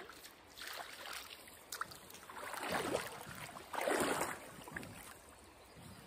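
Hooked rock bass splashing and thrashing at the water's surface as it is reeled in, in three bursts of splashing, the last two the loudest.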